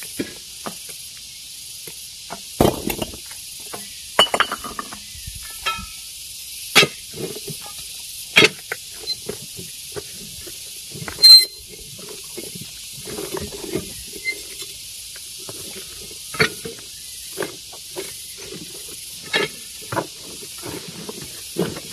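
Irregular sharp knocks and clinks of stone being broken and handled by hand, one much louder strike about eleven seconds in, over a steady high hiss.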